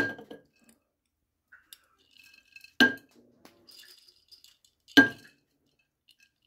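Glass jars clinking together as soaked wheat berries are tipped from one jar into another. There are three sharp chinks with a short ring, near the start, about three seconds in and about five seconds in, with a faint rattle of the wet grains sliding in between.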